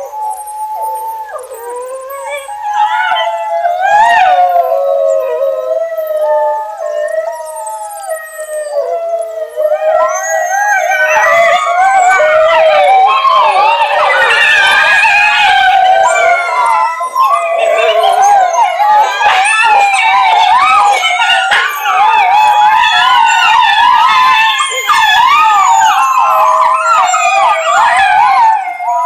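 A pack of dogs howling in chorus: one or two long, wavering, high-pitched howls at first, joined by many overlapping voices from about ten seconds in.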